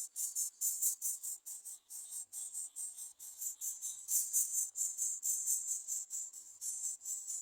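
Insects chirping in a fast, even, high-pitched pulse, about four or five chirps a second.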